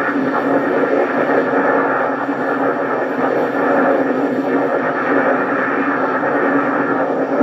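Replica Ghostbusters proton pack's electronics playing the pack's idle hum sound effect through its speaker, a steady, unbroken hum while the cyclotron lights cycle.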